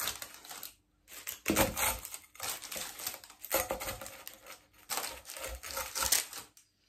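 Pizza-cutter wheel rolling through a crisp baked zucchini-and-potato flatbread and the baking paper beneath it: a series of crunching, crackling strokes, about five cuts, with short pauses between them.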